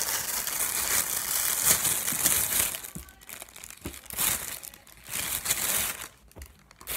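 Plastic crinkling and rustling, continuous for about the first three seconds, then in shorter separate bursts, dying away shortly before the end.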